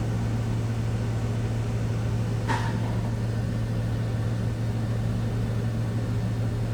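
Walter Helitronic Power grinder's spindle running steadily at 8,000 RPM, its top speed, with an even hum. A single short click about two and a half seconds in.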